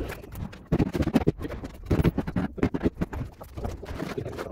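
Trowel working a bed of wet mortar on a concrete floor, with irregular scrapes, slaps and knocks as the mortar is spread and patted down for a tile.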